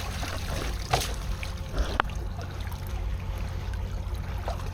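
Water trickling and splashing, with a couple of sharp knocks about one and two seconds in, over a steady low rumble.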